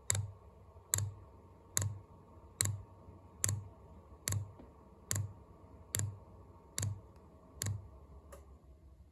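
Diesel air heater's fuel dosing pump clicking steadily, about one click a second, as it pushes fuel through the line to prime it and purge the air. The clicks stop a little after eight seconds, leaving a faint steady hum.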